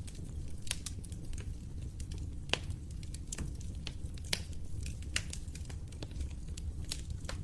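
Wood fire crackling: irregular sharp pops and snaps over a steady low rumble of the flames, with one louder pop about two and a half seconds in.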